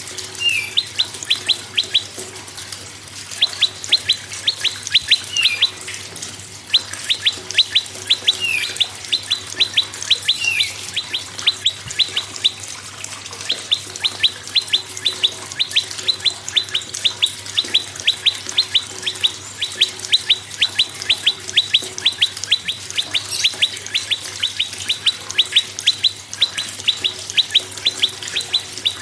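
Prenjak, a small Indonesian warbler, calling in long rapid runs of sharp, high chips that flick downward, several a second, broken by short pauses. A few slurred falling notes are mixed in. A faint steady hum sits underneath.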